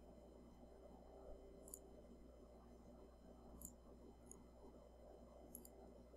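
Near silence: faint room tone with a steady low hum, broken by four faint clicks of a computer mouse.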